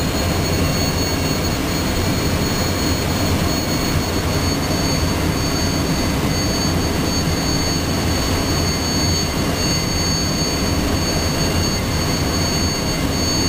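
North American Sabreliner's #2 jet engine running steadily after its start, heard from inside the cockpit: a constant low rumble with a steady high-pitched whine over it.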